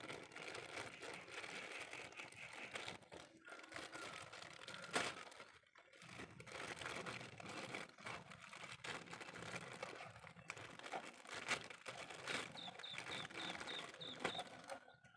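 Plastic packaging crinkling and rustling as a computer mouse is handled and unwrapped, with a sharp click about five seconds in.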